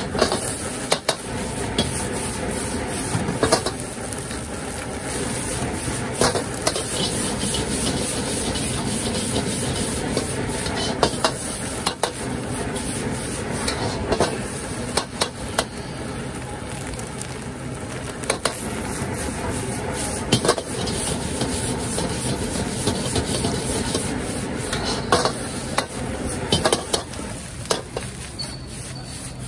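Stir-frying in a wok over a strong gas burner: a steady hiss of flame and sizzling food, with a metal ladle clanking and scraping against the wok at irregular moments as the food is tossed. It is a little quieter near the end, as the flame is turned down.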